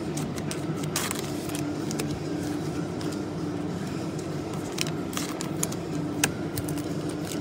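Trading cards and packs being handled: scattered sharp clicks and scrapes over a steady low hum.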